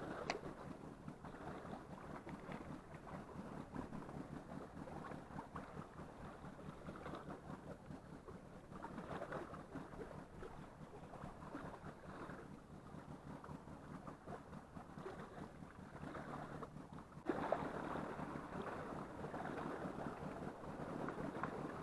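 Wind on the microphone and sea surf washing at the shore, an even rushing noise with a faint steady low hum underneath; it gets suddenly louder about seventeen seconds in.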